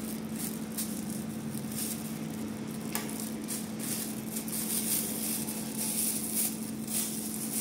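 Thin plastic ice-pop bag crinkling and a utensil scraping and clicking against a glass Nutella jar as the spread is spooned into the bag. A steady low hum runs underneath.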